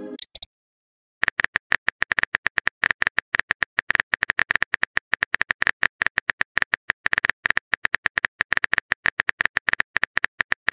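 Phone keyboard typing sound effect: a quick run of light taps, roughly ten a second, starting about a second in.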